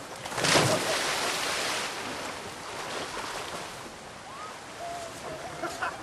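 A person jumping off a pier into the sea: one loud splash about half a second in, fading into churning water, then steady wash of waves and wind.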